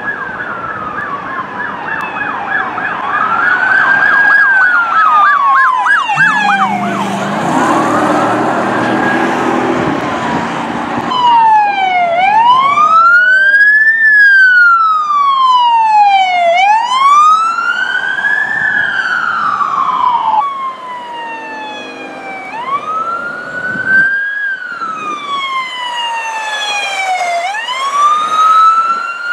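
Police electronic sirens wailing and yelping, the pitch sweeping up and down in repeating cycles that change speed from fast yelps to slower wails. A low horn-like tone sounds briefly about a third of the way in.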